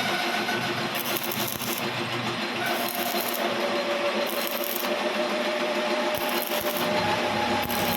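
Metal lathe cutting steel, turning the built-up bearing seat of a wheel hub: a steady scraping cut with ringing metallic tones from the work, one of which slides slightly lower about three seconds in.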